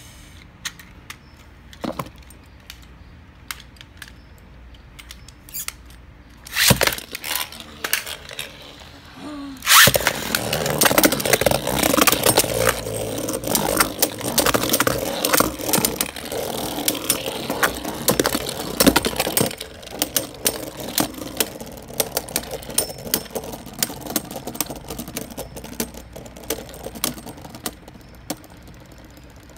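Beyblade Burst spinning tops (Mirage Fafnir and Brave Valkyrie) in a plastic stadium. After a few light clicks and a sharp knock, the tops start with a loud clack about ten seconds in. A dense, fast clattering rattle of metal-and-plastic tops colliding and grinding on the stadium floor follows, easing after about nine seconds into scattered ticks as they keep spinning.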